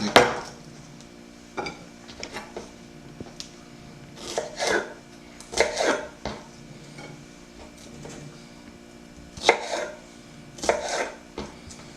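Kitchen knife slicing mini sweet peppers on a cutting board, in short runs of cuts separated by pauses.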